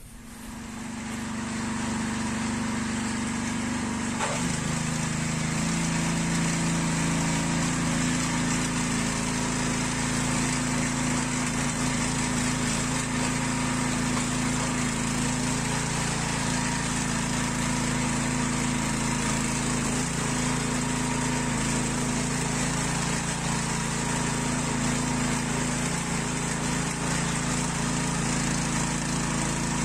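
Small engine of a Kaan garden tiller running steadily after its tine-axle repair, the sound swelling up over the first couple of seconds and its note shifting about four seconds in.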